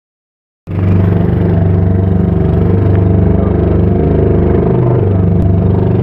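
A small boat's engine running steadily under way, a loud, even low-pitched drone with a fast regular pulse. It cuts in suddenly under a second in.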